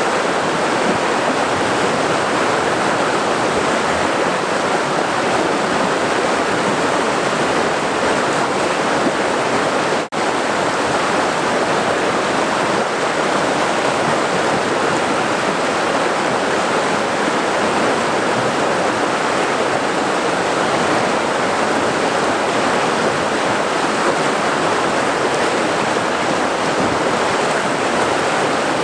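Rushing water of a boiling river: a steady, even wash of flowing water, with a momentary dropout about ten seconds in.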